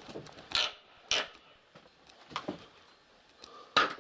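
Four sharp, irregularly spaced knocks, the last and loudest near the end.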